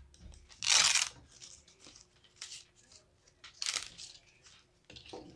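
A folded tripod dolly being handled and worked open on a tabletop. There is a loud scraping rasp about a second in, then several shorter scrapes and clicks from its metal and plastic parts.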